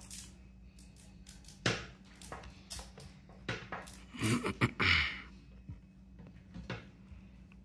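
Irregular clicks and knocks of objects being handled, with a louder cluster of bumps about four to five seconds in, over a low steady hum.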